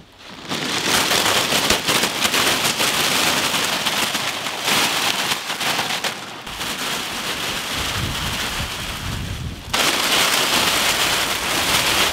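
A mass of sealed Lay's chip packets tumbling onto a heap, a dense crackling rustle of plastic bags. It starts about half a second in and changes abruptly twice, about five and ten seconds in, as fresh loads land.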